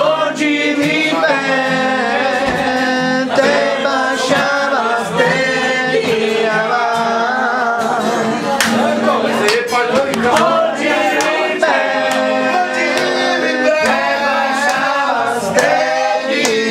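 A group of people singing together, a man's voice prominent, with sharp irregular knocks scattered through the singing.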